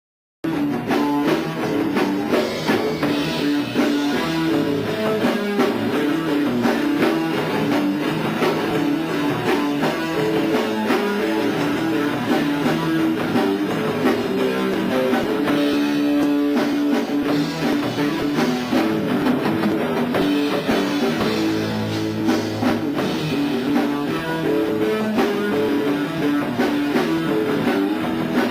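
Rock band playing: electric guitar, bass guitar and drum kit, starting abruptly about half a second in and running on steadily.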